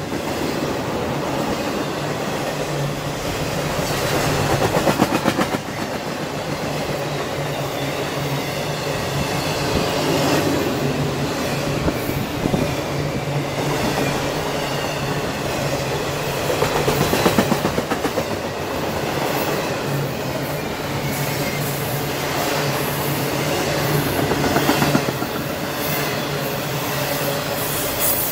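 Double-stack intermodal freight train's well cars passing at speed: a steady rumble and rattle of steel wheels on rail, swelling now and then as wheel sets go by close.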